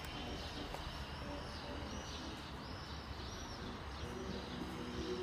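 Small birds chirping: a run of short, arching high chirps repeated every half second or so over a steady low rumble.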